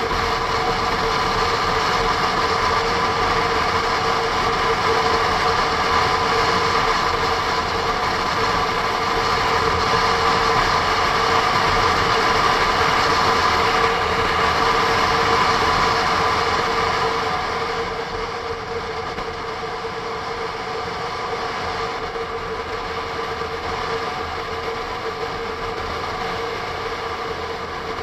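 Honda NC750S parallel-twin engine running steadily at cruising speed, mixed with wind and road noise on the action camera. It drops a little in level about two-thirds of the way through.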